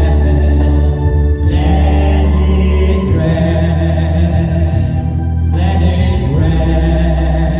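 Christian worship music: a group of voices singing together over instrumental accompaniment with a strong, sustained bass.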